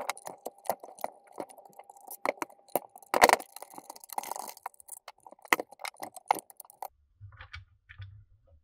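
Hand screwdriver turning out screws from the plastic clamshell housing of a cordless circular saw, with irregular clicks and light knocks of the housing and small parts being handled and set down. The loudest knock comes about three seconds in; the clicking stops near the end.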